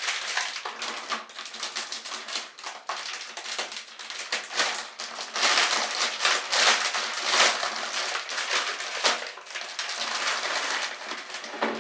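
Shiny plastic anti-static bag crinkling and crackling in the hands as a motherboard is worked out of it. The crackling is rapid and continuous, loudest around the middle.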